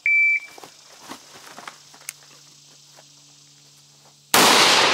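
A shot timer's start beep, one short high tone, then about four seconds later a single loud rifle shot from an AR-style carbine, its echo trailing away.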